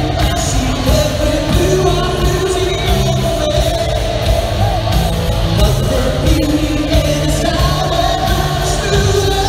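Live rock band playing in a large arena, with a lead singer, heard from the audience.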